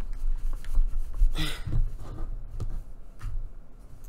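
Low handling noise of hands working a needle and thread through thick paper, with one effortful exhaled breath about a second and a half in and a few light clicks later on.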